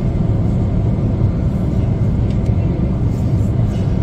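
Jet airliner cabin noise heard from inside the cabin: a deep, even rumble of engines and airflow, with a few faint clicks about two seconds in.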